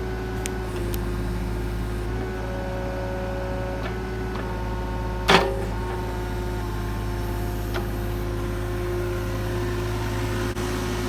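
Mini excavator running steadily with a low engine hum and whine, its tones shifting as the hydraulics work. A single sharp clank comes about five seconds in.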